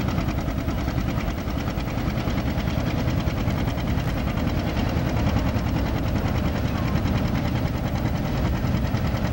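John Deere 720 diesel's two-cylinder engine running hard with an even firing beat as it pulls the weight sled, with the rumble of a freight train passing behind.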